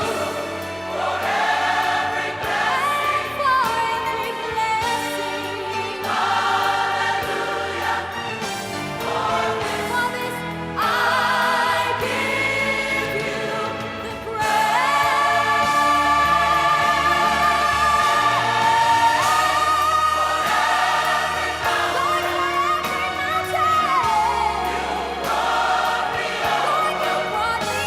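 Gospel choir singing, with long held notes and vibrato, growing a little louder about halfway through.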